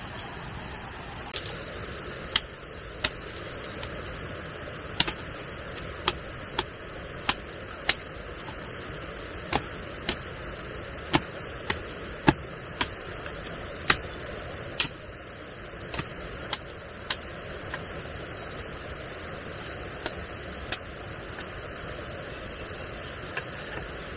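Repeated sharp knocks, irregularly spaced at roughly one a second with a few longer pauses, over a steady hiss and a thin high steady tone.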